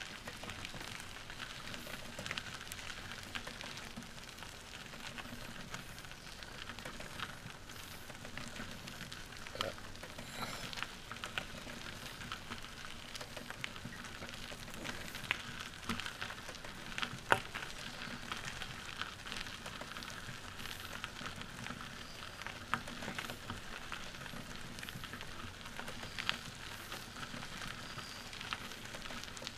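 Pedal tricycle tyres rolling over a gravel trail, making a steady crackling crunch with scattered small clicks and one sharper click about seventeen seconds in.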